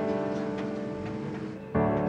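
Background music of held tones with plucked notes; it eases off slightly, then comes back louder suddenly near the end.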